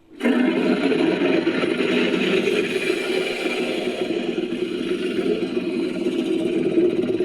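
Fictional giant sea-monster roar, a made-up creature sound effect built from a megalodon roar effect. It starts suddenly and is held as one long, unbroken roar.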